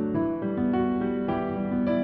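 Solo piano playing slow, sustained notes as background music.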